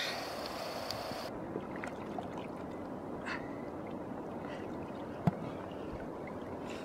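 Shallow river water sloshing and gurgling around a wading angler and a large wels catfish, with a single sharp click about five seconds in.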